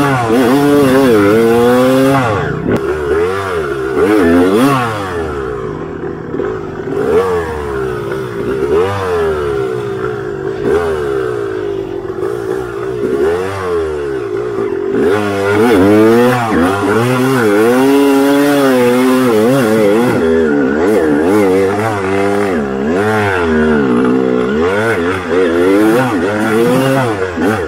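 Yamaha YZ250 two-stroke dirt bike engine being ridden, its revs rising and falling constantly with the throttle. It runs quieter for a stretch from a few seconds in, then louder again from about halfway.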